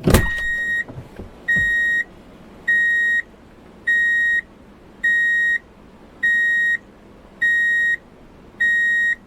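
A loud bang, then a heavy vehicle's electronic warning beeper sounding eight steady, high beeps, about one every 1.2 seconds, over a low mechanical rumble.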